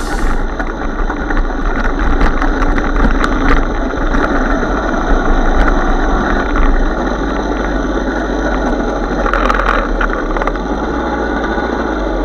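Small two-stroke moped engine running steadily under way, mixed with rushing ride noise at the camera.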